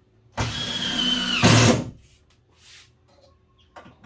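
Cordless drill driving a screw into a wooden countertop for about a second and a half, its whine sagging slightly under load and ending in a short louder burst. A few faint clicks follow near the end.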